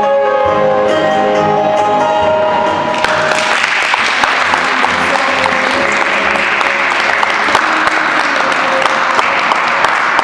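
Music ends on held chords, then about three seconds in an audience starts clapping and keeps applauding steadily, with quieter music carrying on underneath.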